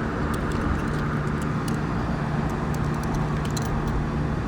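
A steady low machine hum with a constant drone and no break, and a few faint ticks over it.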